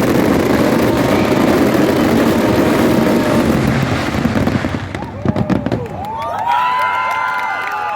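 Fireworks finale: a dense barrage of bangs and crackling that dies away about five seconds in, leaving a few last pops. A crowd then cheers.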